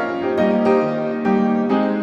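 Background piano music, with a new note or chord struck about every half second.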